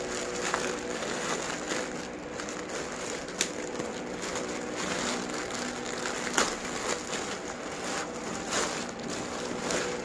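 Clear plastic polybag crinkling and crackling as hands pull it open, with a few sharper snaps of the plastic.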